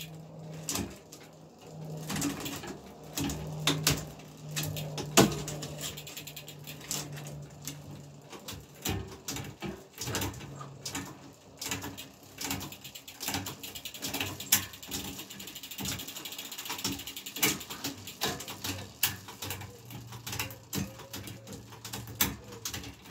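Mountain bike drivetrain being run through its gears: the chain runs steadily over the sprockets for the first eight seconds or so, then many irregular clicks and the ratcheting of the rear freewheel follow.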